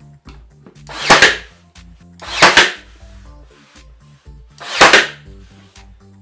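Ryobi 18V One+ cordless brad nailer firing three shots, about one, two and a half and five seconds in, driving brad nails into quarter-round shoe molding. Background music with steady low notes plays underneath.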